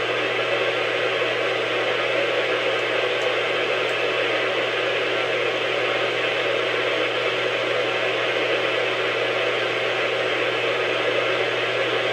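Steady static hiss from a weather radio's speaker tuned to a NOAA Weather Radio channel, with a low hum underneath and no tone or voice on the channel.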